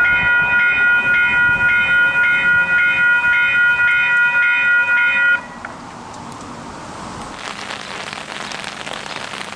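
Several Western Cullen Hayes electronic level-crossing bells ringing together: a steady chord of electronic tones pulsing about twice a second. It cuts off suddenly about five seconds in. After that there is a much quieter hiss that grows louder near the end.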